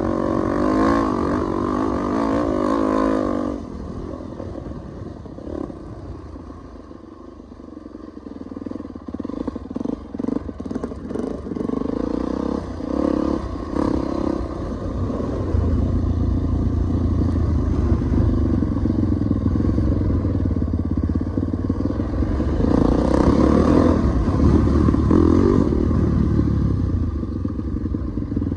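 Dirt bike engine being ridden on a dirt trail, wavering in pitch under throttle at first, then dropping off about four seconds in to a quieter stretch with clattering over rough ground. From about halfway a heavy low rumble builds and swells louder again near the end.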